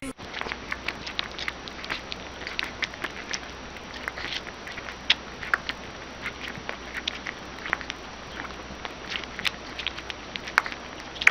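A newborn animal suckling at a milk bottle's teat: quick, wet sucking and smacking clicks, irregular and several a second, over a steady faint hiss.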